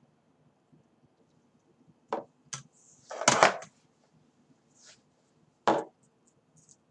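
A few wooden knocks and clatters of objects being handled on a hard surface: two light knocks, then a louder cluster about halfway through, and a last knock near the end.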